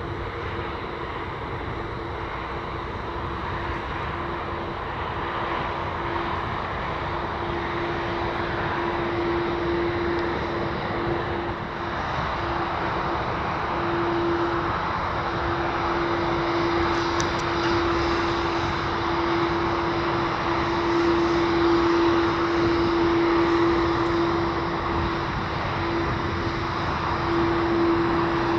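Boeing 787-8 Dreamliner's GE turbofan engines running at taxi power: a steady jet drone with one held low tone, growing gradually louder as the plane rolls closer.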